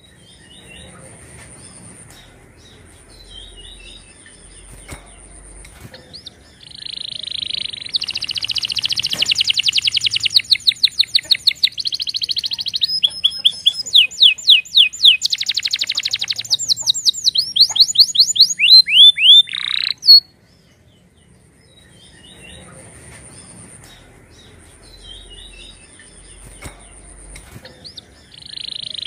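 Domestic canary singing: soft twittering at first, then from about seven seconds in a loud song of fast trills and rapidly repeated notes lasting some thirteen seconds, ending in a few falling whistled notes. Soft twittering follows, and the loud song starts again near the end.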